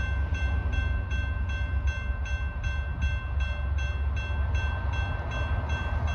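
Railroad grade-crossing bell starting to ring, an even clang about three times a second, over a steady low rumble: the crossing has been activated by an approaching train.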